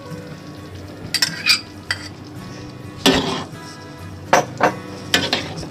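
A metal utensil clinking and scraping against a cooking pot of chicken in soy sauce, about seven sharp strikes spread unevenly, the longest scrape about three seconds in.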